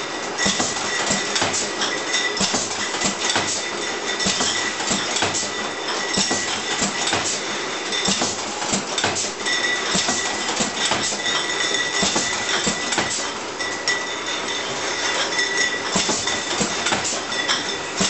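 Cider bottling line running: glass bottles clinking and rattling against each other and the metal guides as the rotary filler and corking machine turn, with rapid irregular clicks and clatter over a steady high whine.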